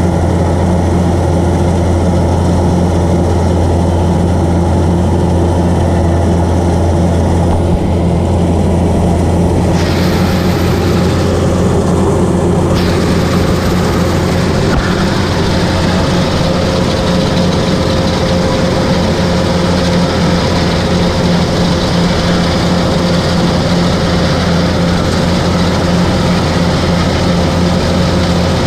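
Kubota rice combine harvester running under load while cutting, heard from the operator's seat. A loud, steady drone of the diesel engine and the cutting and threshing machinery, with a short change in the higher hiss about ten seconds in.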